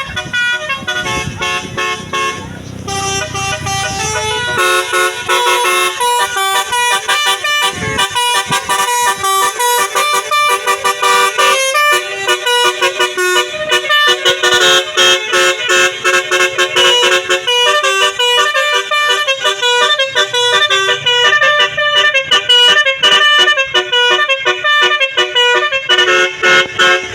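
A bus's 'telolet basuri' musical horn plays a fast melody of short, rapidly changing notes, on and on. A low rumble sits under it in the first few seconds.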